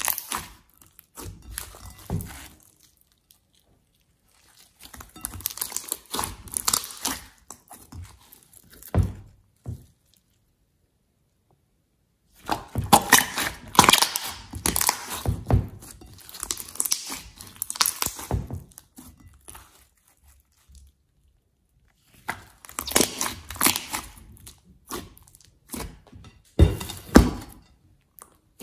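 Hands squeezing and kneading a large mass of glossy slime, making wet squishing and crackling as air pockets pop. It comes in four spells with silent pauses between them.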